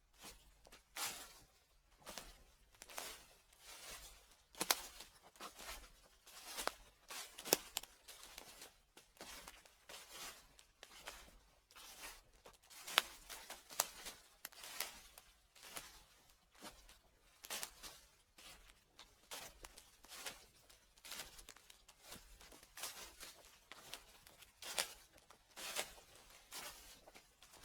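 Footsteps crunching through dry fallen leaves, a steady walking pace of about one crackling step every half second to second.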